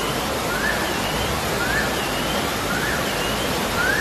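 Floodwater rushing down a street as a steady, loud torrent. A faint high chirping tone repeats about once a second over it.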